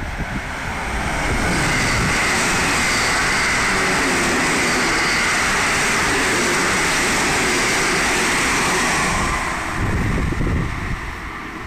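Electric multiple-unit commuter train running past the platform at speed: a steady rush of wheel-on-rail and running noise that swells in over about the first second, holds for some eight seconds and drops away near the end, where wind buffets the microphone.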